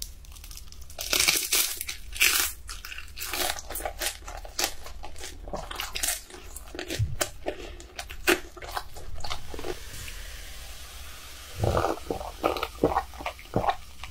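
Close-miked crunching and chewing of a crisp fried dumpling with spicy noodles: a run of crisp crunches in the first half, softer chewing after, and another cluster of sharp crunchy clicks near the end.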